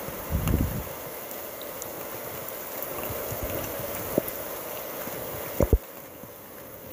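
Steady wind and rain of a heavy thunderstorm, with short low gusts buffeting the microphone near the start. Sharp knocks stand out about four seconds in and twice in quick succession about a second and a half later.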